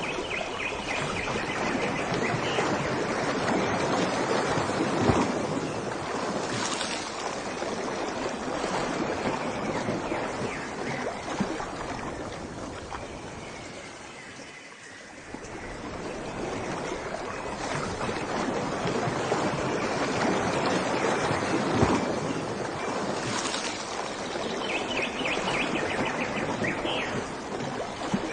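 Rushing water, a continuous roar that swells and eases, dropping to its lowest about halfway through before building again. Faint high chirps come through near the start and near the end.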